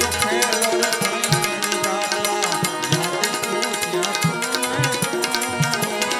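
Instrumental passage of a Gujarati devotional bhajan: tabla playing a steady rhythm over held harmonium notes, with small brass hand cymbals (manjira) clashing along.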